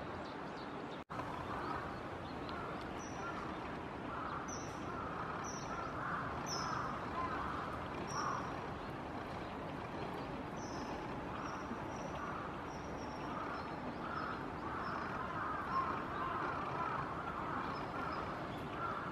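Steady outdoor background noise, with a small bird's short, high, slightly falling calls repeated about once a second through the middle. The sound cuts out briefly about a second in.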